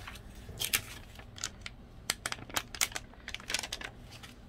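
Clear plastic sheet of self-adhesive hook-and-loop dots crinkling and clicking as the dots are handled and peeled off: a run of irregular sharp ticks and crackles, busiest in the second half.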